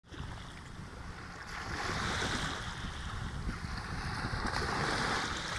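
Small waves washing up on a sandy beach, the hiss of the surf swelling about a second and a half in. Wind buffets the microphone underneath.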